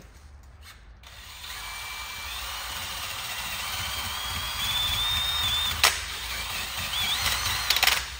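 Handheld drill spinning a rubber eraser wheel against the painted tailgate, scrubbing off old emblem adhesive. It starts about a second in, with a whine that rises in pitch as the drill speeds up. A sharp click comes near the six-second mark, and a few more clicks near the end.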